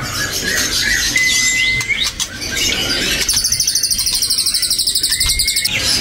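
Caged songbirds chirping and calling together, with a fast, high trill starting about three seconds in and lasting a little over two seconds.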